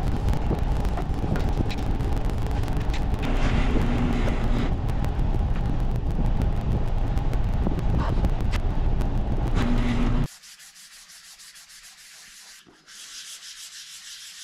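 A loud, low rumble with scattered clicks cuts off abruptly about ten seconds in. It gives way to quieter hand sanding, a light rasping hiss of sandpaper on a painted motorcycle part knocking down a hard paint edge, which pauses briefly and resumes stronger near the end.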